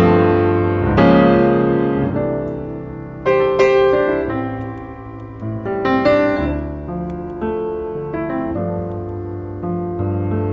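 Background piano music: chords and notes struck every second or two, each ringing and fading away.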